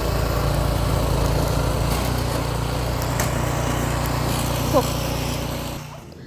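Small engine running steadily, its note shifting about two seconds in, then fading away near the end; a brief rising squeak about five seconds in.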